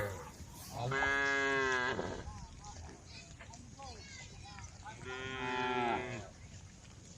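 Cows mooing: two long calls, one about a second in and another about five seconds in, each lasting about a second.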